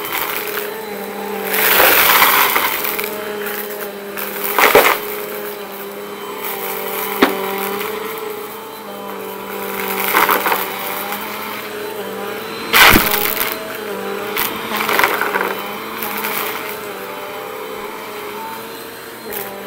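Bissell PowerForce Compact upright vacuum cleaner running on carpet, its motor a steady hum, with several loud bursts of crunching and crackling as it sucks up dry debris, plus a few sharp clicks of hard bits hitting inside.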